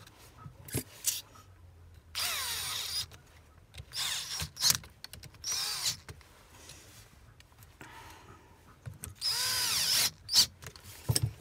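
Electric drill-driver whirring in four short runs, its whine rising and falling with the trigger, as screws are driven while the sprayer is being put back together. A few sharp clicks fall between the runs.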